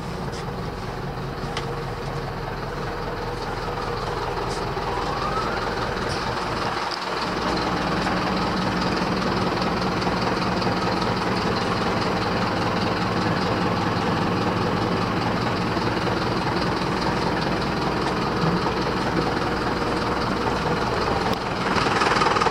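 Mercedes-Benz Vario 815D bus's diesel engine idling steadily, with a brief dip about seven seconds in, after which it is a little louder.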